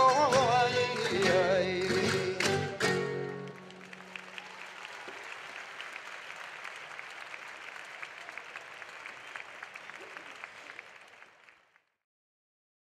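The end of a Spanish folk malagueña: a singer's last wavering note over a plucked-string band, closed by a few sharp strokes about three seconds in. Then audience applause, which fades out shortly before the end.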